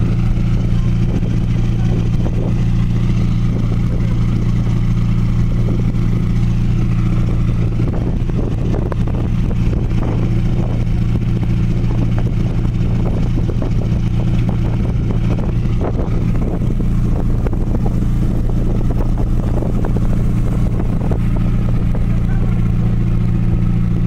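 Ferry's engine running with a steady, deep drone.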